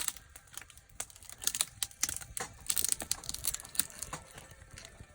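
Wood campfire burning, crackling with irregular sharp snaps and pops that come in clusters with short gaps between.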